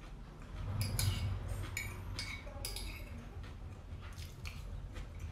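Metal spoon clinking and scraping against a plate as food is scooped, with a cluster of sharp clicks and brief ringing between about one and three seconds in, over a low steady hum.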